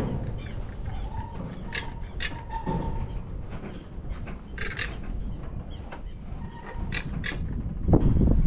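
Outdoor ambience: a low rumble of wind on the microphone, swelling near the end, with a few short, high bird chirps.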